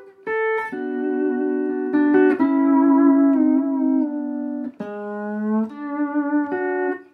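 Gibson BR-6 electric lap steel guitar, probably late-1940s, with its pickup rewound about 10% hotter than stock, played in held chords and single notes, some sliding slightly in pitch, with short breaks between phrases.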